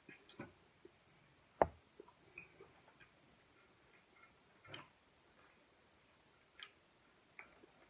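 Quiet eating sounds: scattered soft mouth clicks and smacks of someone chewing food, with one sharper click about a second and a half in.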